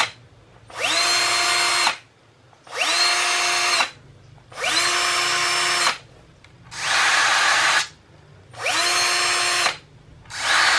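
Bosch 10.8 V cordless drill/drivers, the new GSR 10.8 V-EC brushless and an older model, running unloaded in about six short trigger pulls roughly two seconds apart. Each run spins up with a rising whine that levels off to a steady pitch, then stops when the trigger is released. Two runs in the middle sound rougher, without the clear whine.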